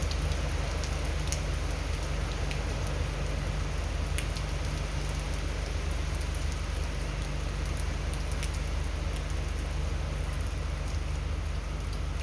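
Hurricane rain falling steadily and heavily, with scattered sharp ticks of drops striking close by over a continuous low rumble.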